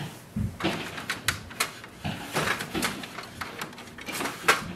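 Printer paper cassette tray being handled while a stack of plain paper is loaded into it: a soft thump, then paper rustling with a run of light plastic clicks and knocks.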